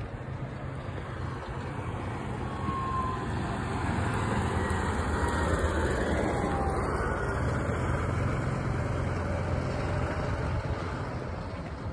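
A motor vehicle passing on the road: a low rumble and tyre noise that swell to a peak about halfway through and then fade.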